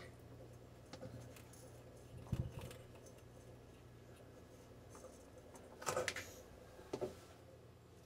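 Faint clicks and knocks of plastic parts being handled as the chopper cover is pressed back into place in a dishwasher sump, the loudest two about six and seven seconds in, over a steady low hum.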